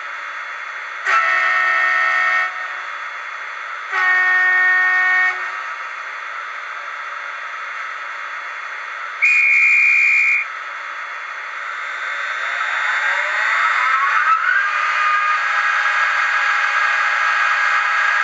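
Sound decoder of a Fleischmann Taurus model electric locomotive, playing through its small speaker over a constant background hum. It sounds two short multi-tone horn blasts, about a second and four seconds in, each just over a second long, and then a brief single high tone. From about twelve seconds a whine rises in pitch and settles into a steady tone.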